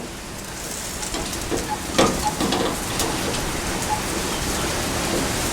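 Phillips screwdriver working the screws on a metal BBQ grill handle: a few sharp clicks and small ticks of the bit on the screws and metal, over a steady hiss like rain.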